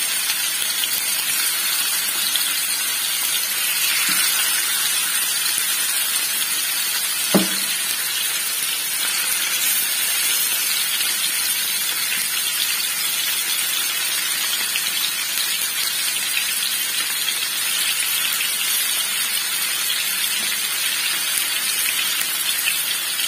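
Spice-marinated chicken pieces sizzling in a shallow layer of hot oil in a nonstick frying pan, a steady hiss. A single short knock comes about seven seconds in.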